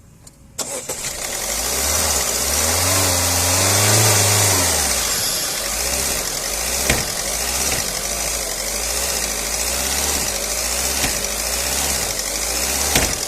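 Ford EcoSport engine starting about half a second in, its revs rising and dropping back, then idling steadily.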